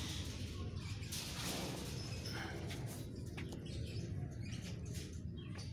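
Short high chirps and squeaks from animals, with scattered sharp clicks and knocks, over a steady low rumble.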